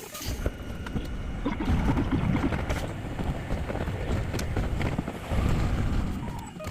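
Hankai Tramway streetcar running: a jumbled rumble and rattle with scattered clicks, and short pitched blips at the start and near the end.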